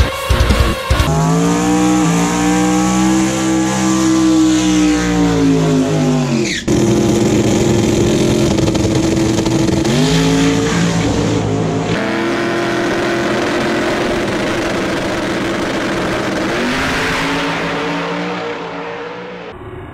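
Race car engine at high revs, its pitch swelling and falling in long sweeps, with a sharp break about six and a half seconds in and a fade near the end.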